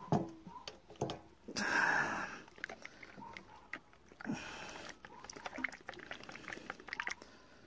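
Hands handling a flask, a plastic camping cup and a spoon while making tea: a few sharp knocks at the start, two short rustling noises, the first the loudest, then a run of light clicks and taps.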